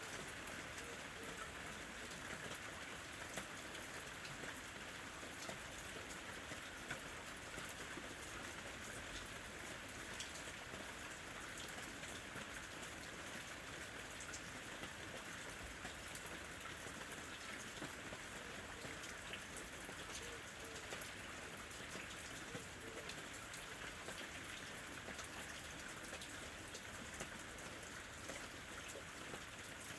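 Steady rain falling, with many separate drops ticking on a surface.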